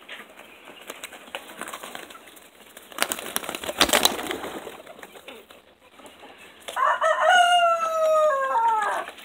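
Pigeon wings flapping in a loud flurry about three seconds in. Then a rooster crows once near the end: one long call lasting about two seconds, held in steps and falling off at the end.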